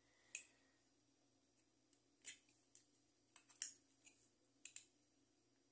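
Near silence with about five faint, scattered clicks of metal tool and part handling while fan-motor bushings are being pressed into their housing.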